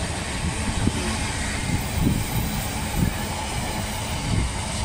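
Intermodal container freight train's flat wagons rolling past on the rails: steady wheel-on-rail rumble with irregular low knocks from the wheels.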